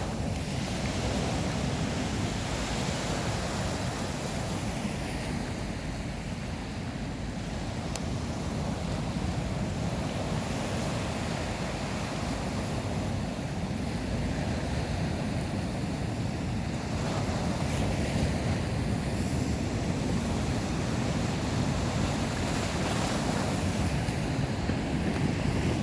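Sea waves washing onto the shore with wind buffeting the microphone, a steady rushing that swells louder about two-thirds of the way in and again near the end.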